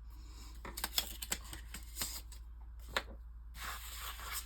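Paper and small craft tools being handled on a table: a few light clicks and taps, then a short rustle of paper near the end.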